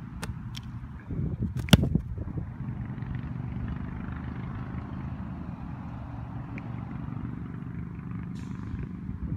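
A football punted: the foot strikes the ball once with a sharp, loud thump about two seconds in. A steady low rumble runs underneath.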